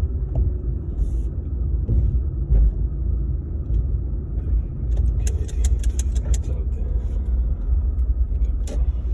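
Steady low rumble of a car's engine and tyres heard from inside the cabin as it drives, with a short run of clicks and rattles about five seconds in.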